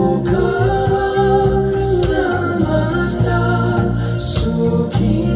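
A song with a singing voice and a steady beat, played back over hi-fi loudspeakers driven by a gallium nitride (GaN FET) class D amplifier.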